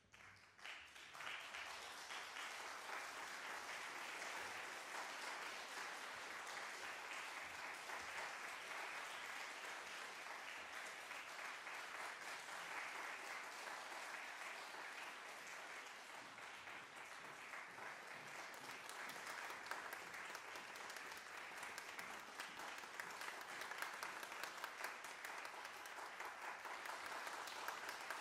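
Audience applause, swelling within the first second or two and then continuing steadily, with a few sharper claps standing out near the end.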